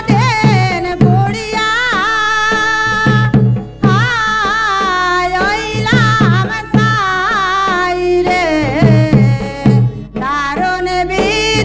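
Women singing a Sylheti dhamail folk song into microphones, in long sung phrases over a drum keeping a steady beat.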